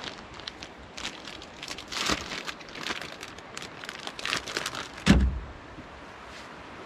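Plastic wrapper of a pack of sliced provolone cheese crinkling as it is pulled open and the slices are peeled out. About five seconds in comes a single thump as the pack is set down on the truck's tailgate, leaving the steady rush of the stream.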